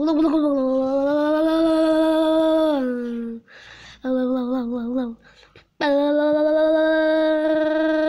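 A child's voice humming long held notes in imitation of a washing machine's motor. A steady hum of about three seconds, a shorter wavering one, then another long steady hum.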